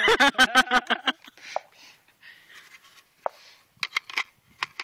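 A brief voice, then a scattering of sharp metallic clicks and clacks from a DPMS AR-15 rifle being handled to clear a jam.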